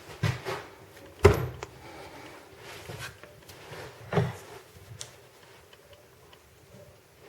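Scattered metal knocks and clanks from working a control arm in a bench vise while a rubber-metal bushing is pressed into its eye; the sharpest knock comes about a second in, with lighter ones around it.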